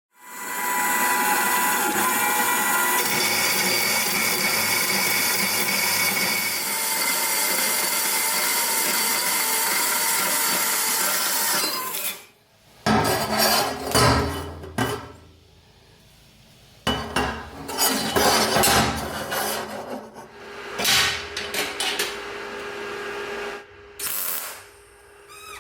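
A power tool working steel runs steadily with a whine for about twelve seconds, then stops. After it comes a string of short bursts of tool noise and knocks as the metal is worked.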